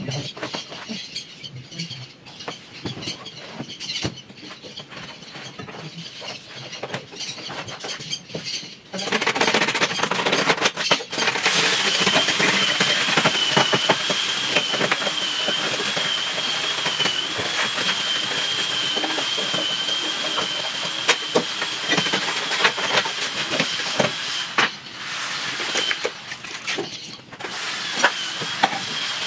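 Faint clicks and handling noises. About nine seconds in, a loud steady rushing hiss starts, and a high, slightly wavering whistle soon rides over it. The whistle fades out near the end.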